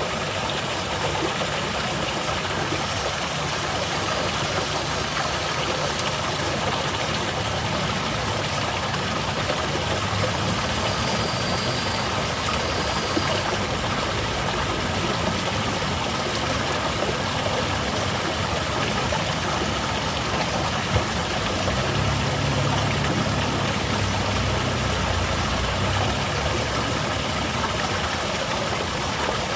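Water of a small garden waterfall pouring steadily, an even rushing hiss. A low rumble comes and goes underneath.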